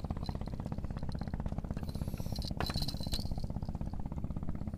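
A small engine running steadily with a rapid, even beat. There is a brief clink about two and a half seconds in.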